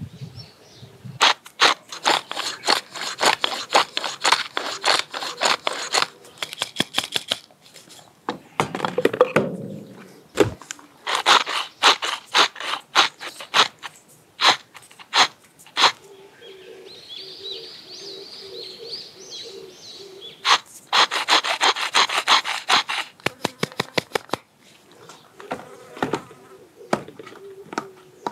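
Wooden pepper mill being twisted, grinding peppercorns in several bursts of rapid crackling clicks, with one low thump partway through. Between the bursts an insect buzzes close by.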